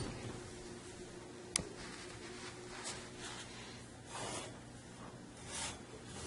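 Quiet room with a faint steady hum, a single sharp click about a second and a half in, and a few soft rustling swishes.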